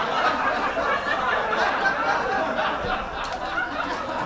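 A group of people chattering and laughing over one another, with no single voice standing out.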